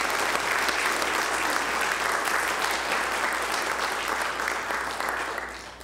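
Congregation applauding, steady and then dying away near the end.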